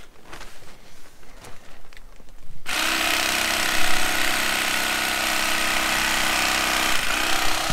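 Black & Decker electric carving knife buzzing as its blades saw through thick memory foam. It stops at the start, starts again just under three seconds in and then runs steadily, with a brief dip near the end.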